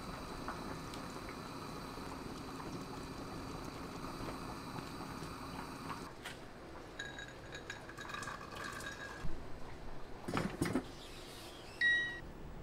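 Thick vegetable curry simmering in a pot, stirred with a wooden spoon. Then a rice cooker is set going: a few short electronic beeps, a couple of sharp knocks as its lid is shut, and a single bright beep near the end.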